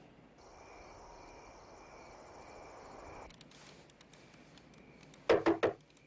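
Crickets chirping steadily in the night air. Near the end come three quick, loud knocks on a wooden door.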